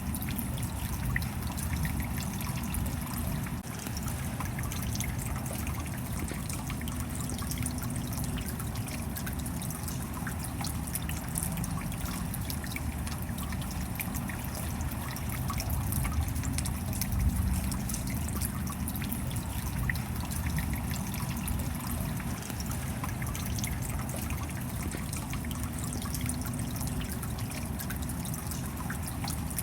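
Steady rain with water trickling, and many small drop ticks scattered through it.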